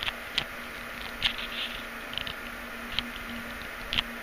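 Irregular light clicks and rustles, roughly one a second, over a steady faint hum.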